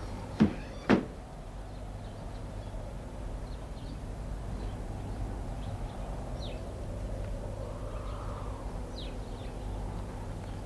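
A door banging twice, two sharp knocks about half a second apart less than a second in, followed by a steady low hum.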